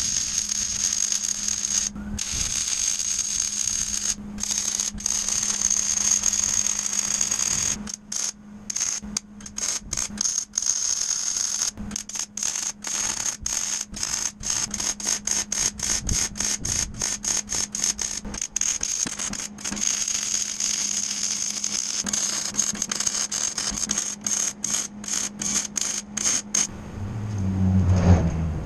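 MIG welder arc crackling steadily as steel unistrut channel is welded to a steel frame, with a steady low hum and a high whine underneath. From about a third of the way in, the arc keeps stopping and restarting in quick short runs, like stitch or tack welds. Near the end the welding stops and a loud low rumble rises.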